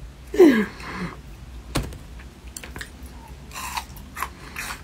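Eating sounds, close up: wet chewing with scattered small clicks and smacks, and one sharp tap of chopsticks about two seconds in. A brief falling voice sound comes near the start.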